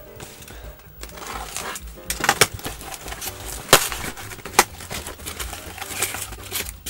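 Packing tape on a cardboard box being slit with a blade and the flaps pulled open: cardboard scraping and rustling, with a few sharp snaps.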